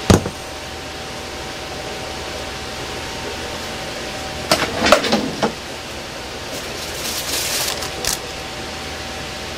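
A ceramic bowl set down on a stainless-steel counter with a sharp knock, over the steady whirr of a fan with a faint high hum. About halfway through come a few short clattering handling sounds, and near the end a brief rustle and a click.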